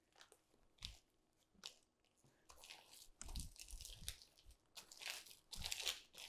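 Faint crinkling and scraping as a plastic bowl scraper is pushed along a plastic piping bag on a countertop, squeezing leftover batter down it, in a series of short strokes that grow more frequent and louder in the second half.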